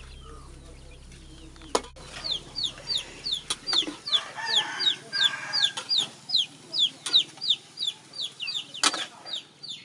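Chicks peeping: a fast string of short, high, falling peeps, about three a second, starting about two seconds in. A few sharp clinks of a metal spatula on the wok sound among them.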